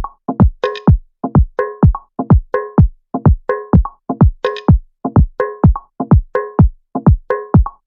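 Electronic DJ soundcheck remix music: a deep kick drum whose pitch drops sharply on each hit, beating in a fast repeating pattern, with short synth chord stabs and an occasional hissing cymbal.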